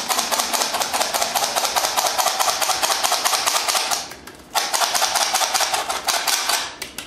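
Metal flour sifter rattling in a fast, even run of ticks as a flour and spice mix is sifted into a bowl of beaten eggs and sugar. It stops for about half a second about four seconds in, then starts again.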